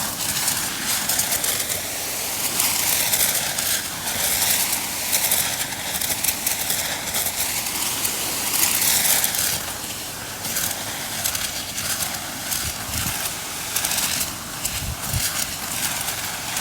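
Pressure washer's zero-degree jet blasting and shredding thistle plants: a continuous hiss and spatter with rapid crackling, swelling and easing as the jet moves across the stalks, over the steady running of the pressure washer.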